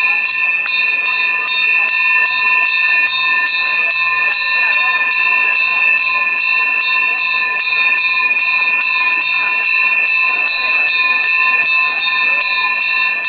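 Bells rung fast and without pause during a Hindu aarti, giving a steady ringing tone renewed by about four strikes a second.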